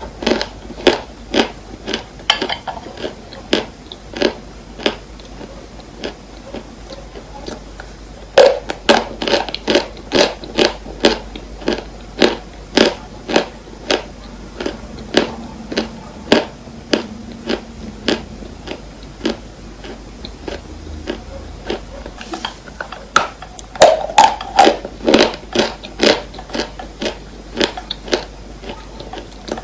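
Dry chalk crunching: a long series of sharp crunches, coming in quick runs near the start, from about a third of the way in, and again near the end, with sparser, quieter crunches between.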